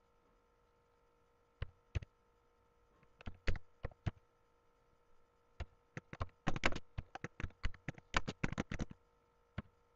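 Computer keyboard typing: a few scattered keystrokes, then a quick run of keystrokes in the second half.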